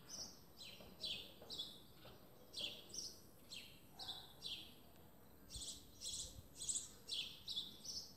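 Birds chirping repeatedly, each chirp a quick high note sliding downward, about two a second and often in pairs.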